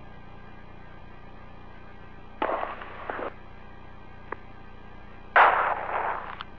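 Two bursts of static on the shuttle crew's radio and intercom loop, one about two and a half seconds in and a louder one about five and a half seconds in, with a single click between them, over a faint steady hum of the audio line.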